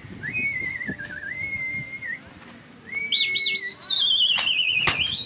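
Shrill human whistling to a flying pigeon flock. A long wavering whistle comes first, then a louder quavering whistle that slides down in pitch. Two sharp cracks sound near the end.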